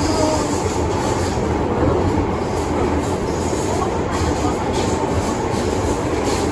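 MTR Island Line M-Train (Metro-Cammell EMU) running at speed in the underground tunnel, heard from inside the carriage: a steady, loud rumble of wheels on rail and traction gear.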